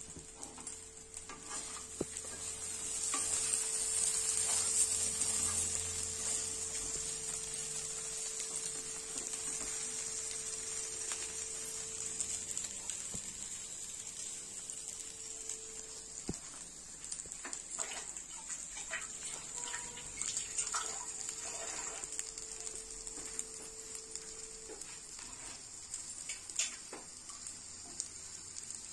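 Oil sizzling steadily in a frying pan around idli pieces tempered with mustard seeds, cumin and coriander. The sizzle swells a few seconds in and then slowly eases, with a few light clicks of a spatula against the pan.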